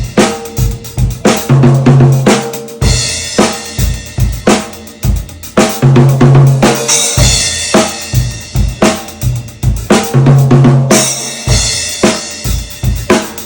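Drum kit played continuously, with hits on a 14x8 maple/mahogany stave 10-lug snare drum at medium tuning, over kick drum and cymbals. A low drum rings out for about a second three times, about every four seconds.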